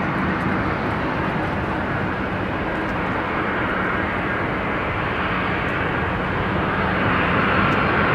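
Boeing 767-300ER airliner on its landing approach: steady jet engine noise with a faint whine, growing louder near the end as the aircraft nears.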